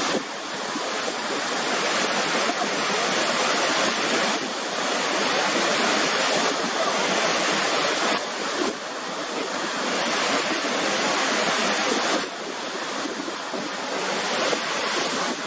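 Waterfall crashing: a steady rush of falling water, dipping slightly in level a few times.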